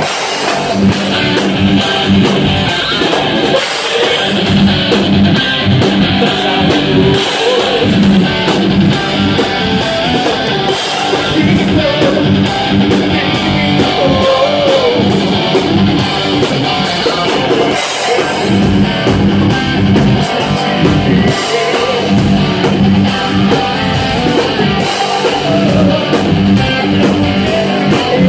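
Live heavy metal band playing loudly: distorted electric guitar, drum kit and a male singer's vocals.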